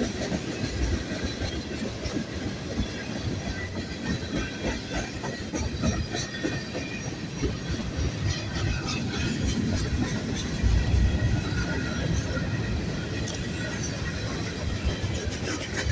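Freight train cars rolling past close by: steel wheels clacking steadily over the rail joints, with a faint high wheel squeal.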